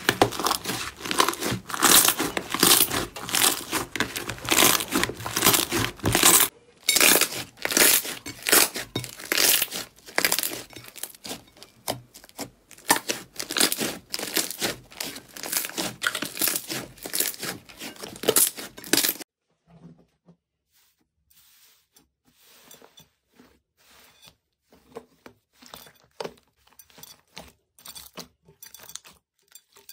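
Slime being squeezed, pressed and stretched by hand, giving dense crackling and popping as trapped air bursts. After about twenty seconds it drops to faint, scattered pops.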